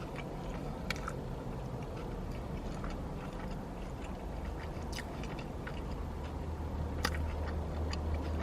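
A person chewing a mouthful of a turkey and Swiss wrap, with a few brief sharp mouth clicks, over a low steady rumble.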